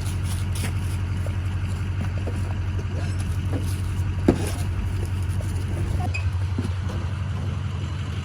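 A vehicle engine running with a steady low drone, with a single sharp knock about four seconds in.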